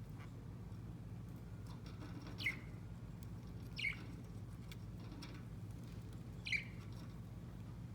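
Budgerigar giving three short chirps a second or two apart, each falling in pitch, over a steady low hum.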